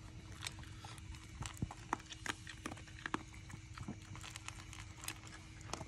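Mameshiba eating dry dog food from a bowl: irregular crunches and clicks of kibble against the bowl, several a second.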